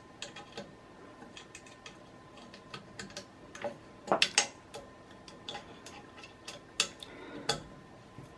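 Small metallic clicks and ticks of an Allen key turning and re-seating in bolt heads and knocking against the aluminium frame extrusion as the bolts are tightened, with a few louder knocks about four seconds in and near the end.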